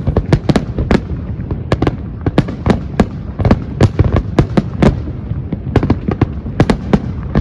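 Fireworks display: shells bursting in quick succession, several sharp bangs a second over a continuous low rumble.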